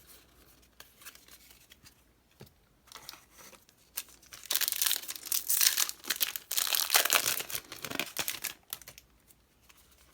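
A Yu-Gi-Oh! foil booster pack wrapper being torn open and crinkled by hand, with light rustling and clicks at first, then a loud burst of tearing and crumpling about four seconds in that lasts around five seconds.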